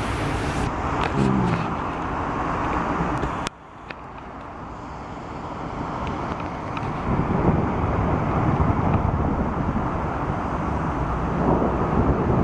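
Heavy rain and car tyres hissing on a wet street, a steady rushing noise. It drops away suddenly about a third of the way in and then builds back up over a few seconds.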